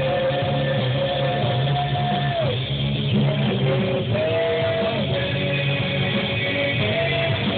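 Rock band playing live in a poor-quality recording, with long held notes that slide down and then back up in pitch.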